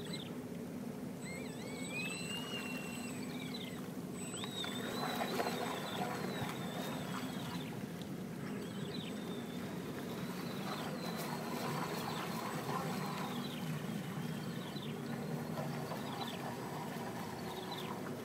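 Lake water lapping steadily at the shore, with repeated high chirping calls that rise and fall throughout.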